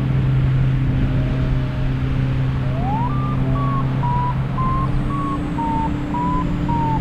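A paragliding variometer beeps over wind rumbling on the microphone. A lower tone sounds about a second in, then the pitch slides up about three seconds in and settles into a run of beeps about twice a second. This is the vario's climb tone, signalling that the glider is rising in lift.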